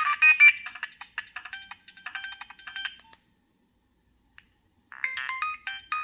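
Nokia 3590 mobile phone playing its preloaded ringtones: one electronic beeping melody cuts off about three seconds in, a faint click follows, and a new tune of quick, repeated beeping notes starts near the end.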